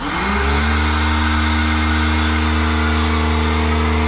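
Karcher pressure washer's motor and pump starting up as the spray gun is triggered, rising quickly in pitch to a steady hum, with the hiss of the water jet throughout.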